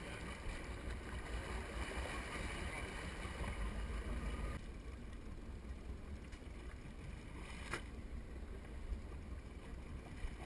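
Water rushing and splashing along the hull of a boat moving forward, over a steady low rumble. About halfway through the rushing eases as the water alongside calms, and a single sharp click comes near the end.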